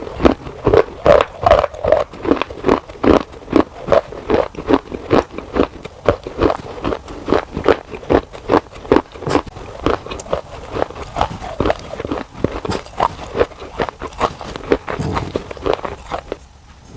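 Close-miked crunching as a person chews pieces of baked clay pot: a steady rhythm of sharp, gritty crunches, a few each second, with a short lull near the end.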